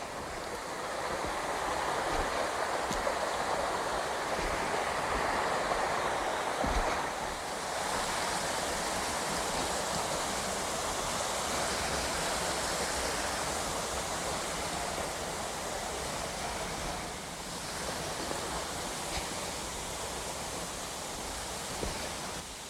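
Rushing stream water, a steady hiss that swells over the first couple of seconds and then holds.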